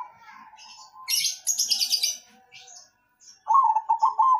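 Zebra dove (perkutut) singing in the 'noklak' style: a phrase of about five quick pulsed coo notes starts about three and a half seconds in. A high twittering from another small bird runs about a second in.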